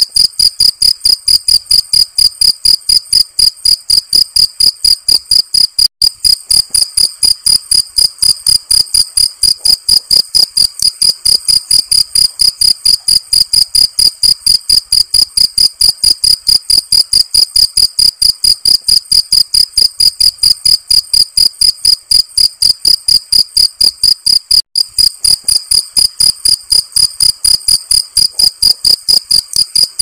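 Field cricket (jangkrik sawah) calling: a loud, high-pitched chirping in a rapid, even rhythm of several chirps a second, broken by two very brief gaps, about six seconds in and near 25 seconds.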